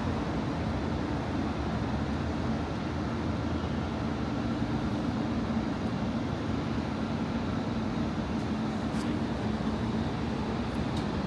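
Steady city street traffic noise with a continuous low hum running through it, without pauses or sudden events.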